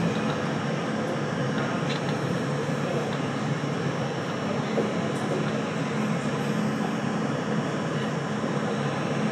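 R42 subway car rolling slowly through an underground station, heard from inside the car: a steady running noise from the wheels and motors, with a low hum and a few faint ticks.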